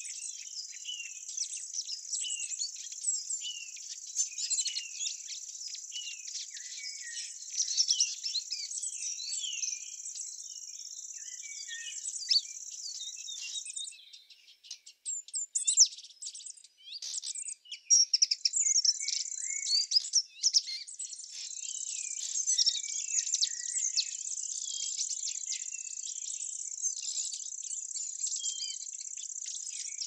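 Many small birds chirping and twittering over a steady, high insect trill. For a few seconds around the middle the trill drops out, and louder, sparser chirps stand out with short gaps between them.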